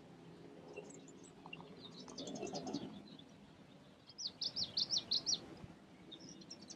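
A small bird chirping: a few faint scattered chirps, then a quick run of about eight sharp high notes about four seconds in.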